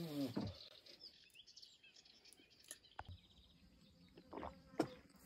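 Quiet outdoor background with faint bird chirps and a few soft clicks. A brief voice-like hum fades out at the very start.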